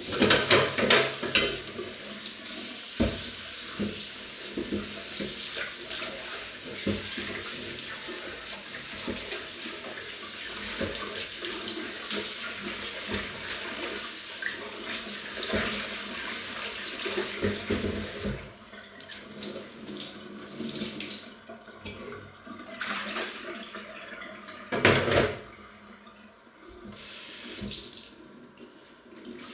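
Kitchen tap running into a stainless steel sink while dishes are washed with a sponge under the stream. The water flows steadily for about the first eighteen seconds, then comes and goes in shorter spells.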